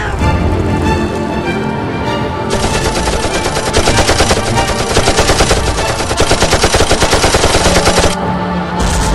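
Rapid automatic gunfire sound effect, a long stream of machine-gun shots starting about two and a half seconds in and stopping about a second before the end. It plays over the music score.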